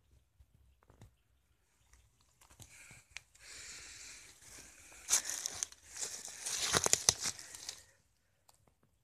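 Dry leaf litter and undergrowth rustling and crackling as someone moves through it, with a few sharper crackles. This starts about three seconds in after a near-quiet stretch.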